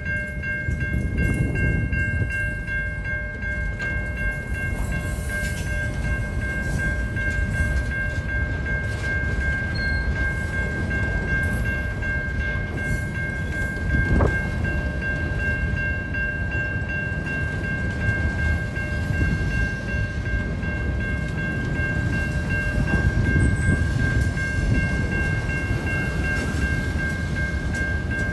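A train rolling past with a steady low rumble, over which several steady high-pitched tones carry on throughout.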